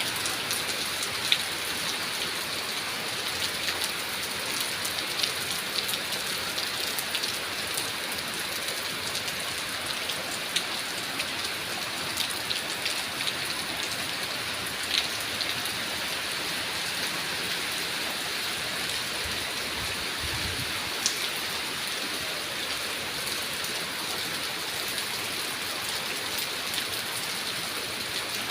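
Steady rain: a constant hiss with scattered sharp taps of drops striking a surface.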